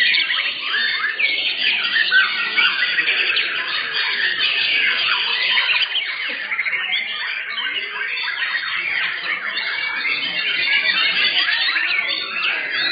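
Several caged white-rumped shamas (murai batu) singing at once, a dense, unbroken tangle of overlapping whistles, chirps and rapid trills.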